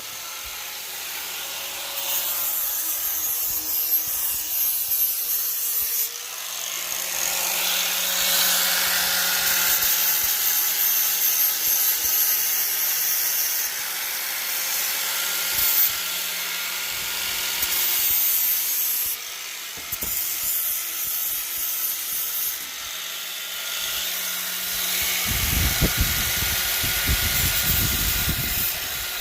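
Power grinder running against steel, a steady hiss over a motor hum. A heavy low rumble comes in near the end.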